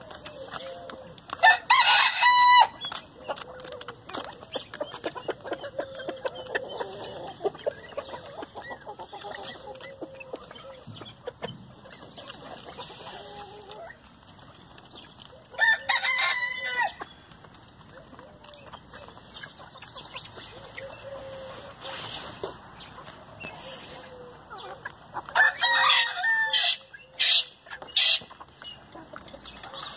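A flock of chickens clucking softly as they feed, with a rooster crowing loudly three times: about two seconds in, at about sixteen seconds, and again near the end.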